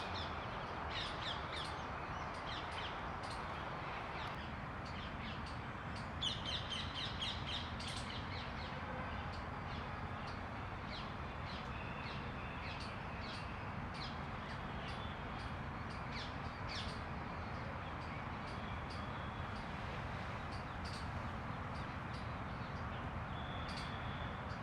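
Birds calling: short, sharp chirps scattered throughout, with a busier run of quickly repeated notes about six to eight seconds in, over a steady background hum.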